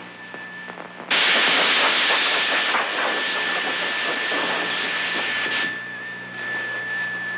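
A loud, steady hiss starts suddenly about a second in and eases somewhat after about five seconds.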